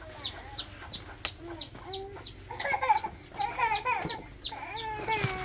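Chickens calling: a quick run of high, falling peeps, about three a second, with lower clucking calls joining in from about two and a half seconds in.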